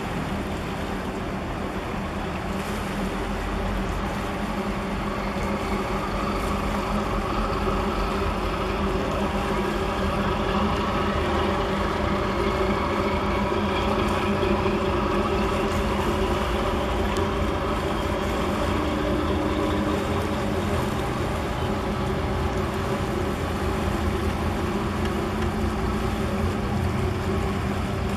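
Diesel engines of a large container ship and its escorting harbour tug passing close by: a steady droning hum of several held pitches that grows louder a few seconds in.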